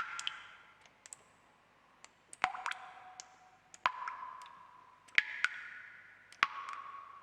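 Water drops falling one at a time into water, each a sharp plink followed by a ringing tone that bends briefly in pitch and fades, at irregular intervals, about seven drops in all with a pause of a couple of seconds after the first.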